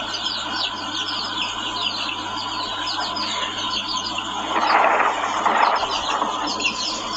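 Small birds chirping busily, many quick high chirps that fall in pitch, overlapping one another. About four and a half seconds in, a louder rushing noise swells for about a second and a half.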